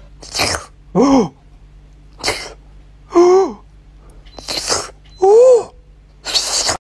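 A cat at an ice lolly making a run of short, breathy, sneeze-like snorts, alternating with three brief calls that rise and fall in pitch, about one sound a second.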